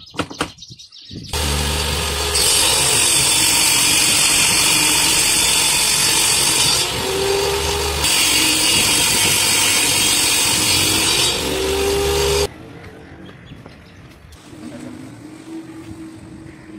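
Homemade table saw's circular blade, driven by a motor under the table, starts a second in and rips through a laminated board twice. Each cut is a loud, high-pitched whine lasting about four seconds over the motor's steady hum. The saw stops abruptly about twelve seconds in.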